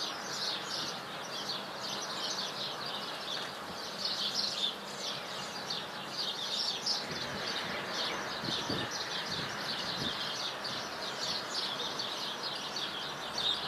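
Many small birds chirping continuously in quick, overlapping calls; no bell strikes.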